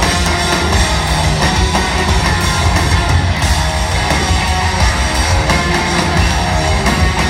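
Live rock band playing loudly, with distorted electric guitars, bass and drums, heard from the audience in a large hall.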